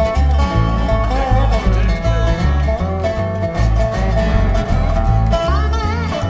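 Swing country music with no vocals: a resonator guitar played lap-style with a slide carries the lead in gliding, wavering notes over strummed acoustic guitar and an upright bass walking a steady beat.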